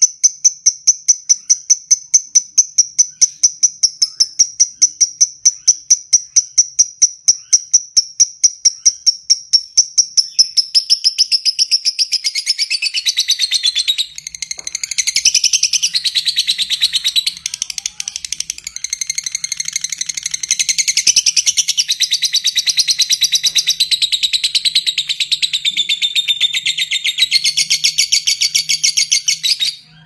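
Fischer's lovebird giving a long, unbroken ngekek: a rapid, evenly spaced run of shrill chattering notes. The notes are clear and high at first, then turn harsher and lower from about ten seconds in, with a brief break partway through.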